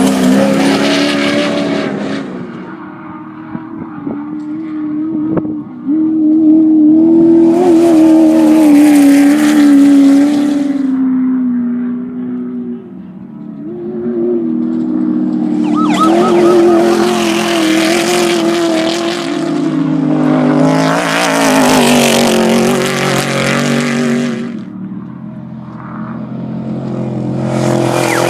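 Off-road race vehicles passing one after another at speed, several in turn, each swelling loud and fading as its engine revs and changes pitch.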